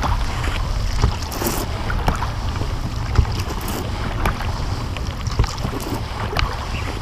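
An inflatable boat being rowed: oars splashing in the water, with scattered knocks, over steady wind noise on the microphone.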